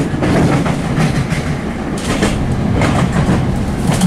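Class 465 Networker electric multiple unit heard from inside the carriage while running at speed: a steady rumble of wheels on rail, with a few sharp clicks from the wheels passing over the track.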